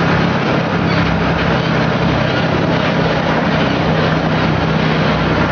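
Engine of a small mining dumper running steadily as it drives into a mine tunnel entrance, a constant low hum under a broad mechanical noise.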